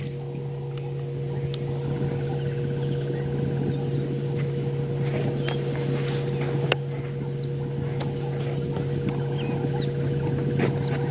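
A steady, low mechanical hum with a few faint scattered clicks and short bird chirps over it.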